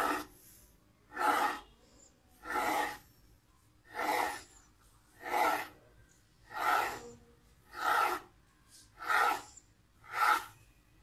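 Serrated knife drawn through rolled pastry dough, scraping the wooden board beneath: a short rasp with each cut, about one every second and a quarter, nine in all.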